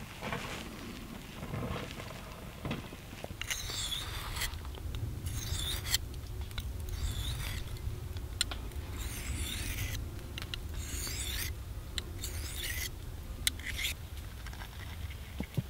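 A knife blade drawn across a handheld sharpening stone: a series of rasping strokes, each under a second, with short pauses between.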